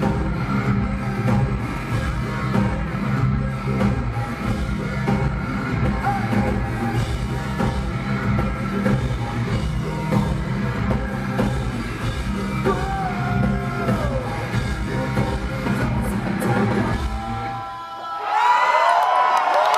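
Industrial rock band playing live through a loud arena sound system, with a heavy steady beat. About seventeen seconds in, the music stops and the crowd cheers and screams.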